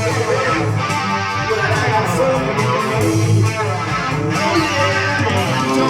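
Playback of a guitar-backed song with a male vocal run through a robotic pitch-correction effect that holds the voice to the key of the music.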